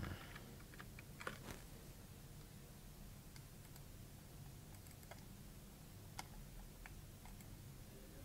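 Faint, scattered computer keyboard clicks, a few keystrokes at a time with pauses between, over a low steady hiss of room tone.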